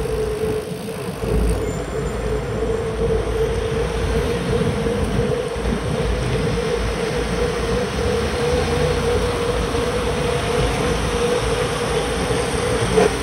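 Road noise from a bicycle riding on a rain-wet street: a steady hiss of tyres on wet asphalt and wind rush, with a constant mid-pitched whine and a short knock near the end.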